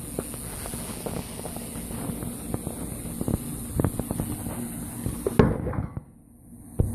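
Dogs crunching frozen chicken feet: a rapid, irregular run of sharp cracks as the bones and ice break between their teeth. A louder knock comes about five seconds in, then a brief gap in the sound near the end.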